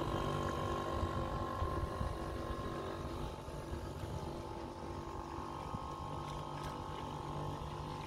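Dinghy's small outboard motor running at a steady pitch, growing slowly fainter as it pulls away.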